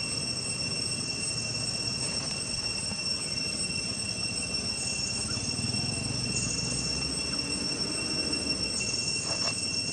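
Steady high-pitched insect drone, holding two even tones without a break, over a low background rumble. A few short clicks near the end.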